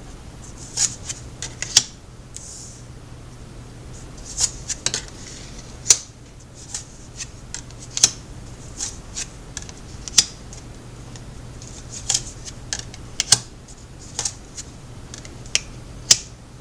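Tarot cards being shuffled and laid out by hand: irregular sharp snaps and taps of card on card and on the table, with a few soft sliding swishes, over a faint steady low hum.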